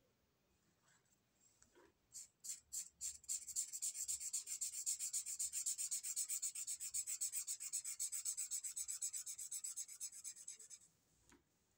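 Felt-tip marker rubbed quickly back and forth on paper, filling in colour, at about six strokes a second. A few separate strokes come about two seconds in before the steady run, which stops shortly before the end.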